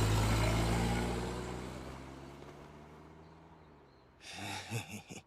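A car engine running low and steady, fading away over about four seconds as the car drives off. Near the end comes a brief breathy sound, like a sigh or exhale.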